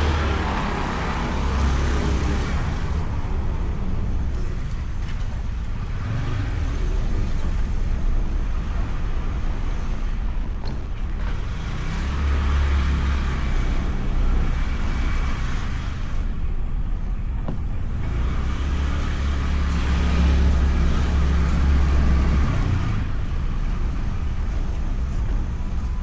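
Honda Beat scooter ridden through traffic, heard from an action camera on the scooter: its single-cylinder engine and road and wind noise run steadily. A low rumble swells and eases several times.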